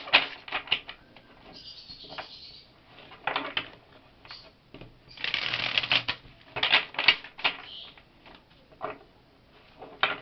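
A deck of tarot cards being riffle-shuffled by hand, a rapid flutter of cards snapping against each other, in several quick runs with short pauses between.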